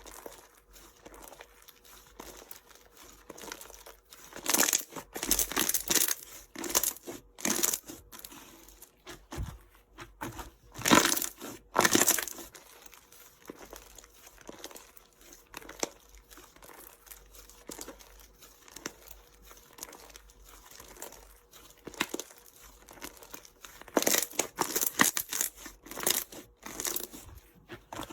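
Slime being squeezed and stretched by hand, giving irregular bursts of crackling, with quieter small crackles in between. The louder bursts come a few seconds in, again around the middle, and near the end.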